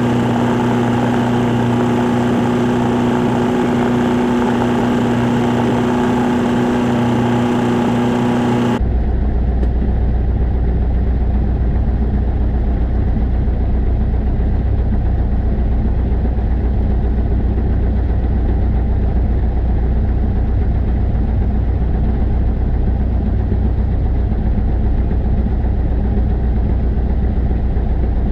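Light single-engine aircraft's piston engine idling steadily with the propeller turning, heard from inside the cockpit. About nine seconds in the sound changes abruptly from a higher hum with steady pitched tones to a deeper, even drone.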